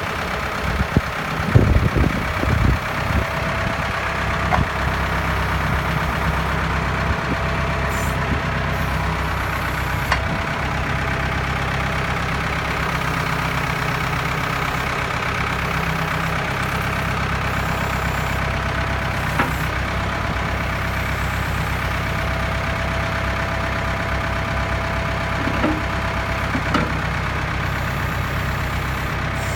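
Tractor engine running steadily, driving a Twose rear-mounted backhoe. A cluster of knocks comes in the first few seconds, and a few single knocks follow later.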